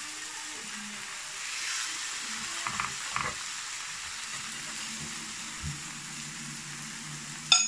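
Eggs frying in oil in a nonstick pan, sizzling steadily. There are a couple of light clicks about three seconds in and a sharp clack near the end.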